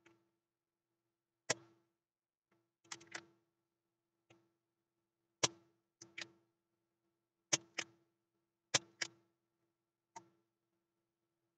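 Spring-loaded solder sucker (desoldering pump) snapping as its plunger is released to pull molten solder off circuit board joints: a series of sharp clicks, mostly in close pairs, every second or two.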